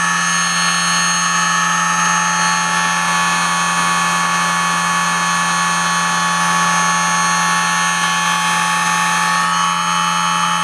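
Two shaft-coupled brushless motors on a dyno bench running steadily at half throttle under a 40-amp load, driven by a Castle Creations ICE2 HV160 speed controller. A steady electric whine of several held tones over a hum.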